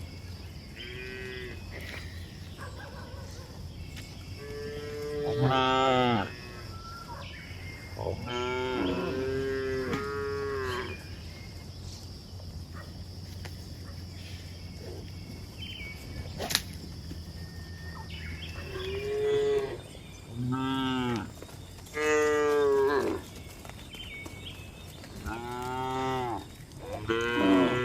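Cows mooing again and again, about a dozen calls of a second or so each, many rising and then falling in pitch, several close together near the middle and end. A steady low hum runs beneath the first two-thirds and stops.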